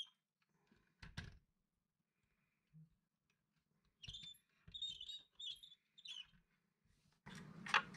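Faint handling sounds: a soft knock about a second in, a run of short high squeaks between about four and six seconds, and rustling that builds near the end.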